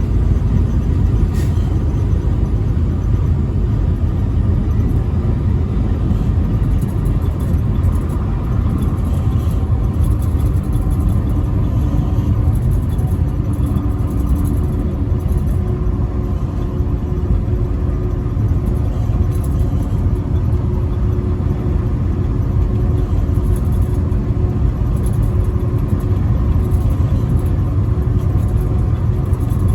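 Truck driving at highway speed: a steady, low engine and road rumble.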